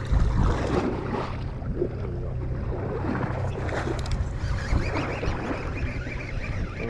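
Charter fishing boat's engine idling with a steady low hum, and a thump right at the start.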